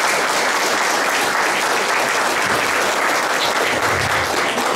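An audience in a hall applauding, a steady dense clapping that keeps going without a break.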